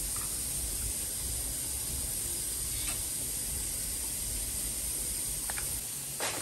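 Steady background hiss, with a few faint light ticks from hands stuffing squash blossoms with cheese on a glass plate, and a short knock near the end.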